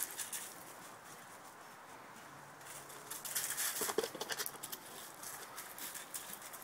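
Footsteps scuffing on gravel: scattered light clicks and scrapes, busiest about three to four and a half seconds in.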